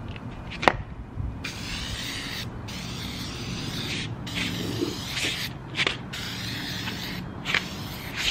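Aerosol can of spray chalk hissing in a series of spray strokes with short breaks between them, beginning about a second and a half in; a single sharp click comes just before the spraying starts.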